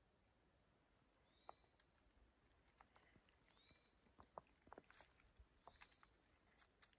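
Near silence, with a faint short high chirp repeating about every two seconds and scattered faint clicks.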